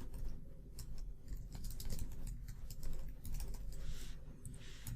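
Typing on a computer keyboard: an irregular run of keystrokes, over a low steady hum.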